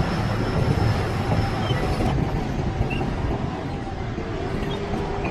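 Heavy diesel earthmoving machinery running under load, a steady low rumble.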